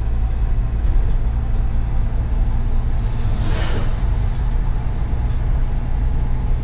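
JAC truck's engine running steadily at low speed, with a steady low road rumble. A brief hiss rises and fades about three and a half seconds in.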